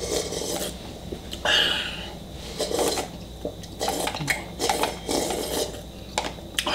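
Slurping and sucking noodles and broth from a tipped-up Shin Ramen cup, in a string of short bursts, with chopsticks tapping and scraping against the cup as the last of it is drained.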